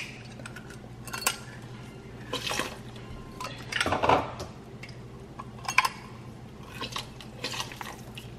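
Metal kitchen tools clinking and knocking against a stainless steel pot, with short splashes and drips as lime juice is squeezed from a hand-held metal press into melted butter sauce. The noises come at irregular intervals, about one every second or two.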